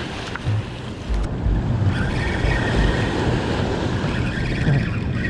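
Steady rush of water pouring through the dam's open floodgates, with wind buffeting the microphone in irregular low gusts.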